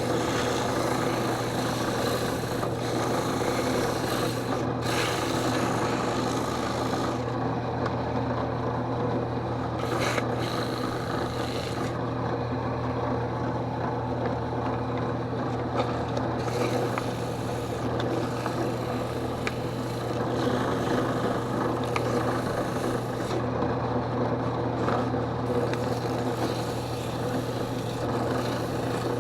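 Drill press running steadily with a low motor hum while a wooden piece spinning in its chuck is rubbed and abraded to shape it, a scraping, rasping noise. The rubbing eases off for a few seconds three times while the motor keeps running.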